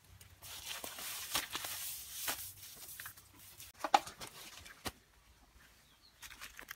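Hands scooping and handling a wet mud-and-straw mix into a woven basket: a run of scraping noise, then a few sharp knocks about four and five seconds in, quieter toward the end.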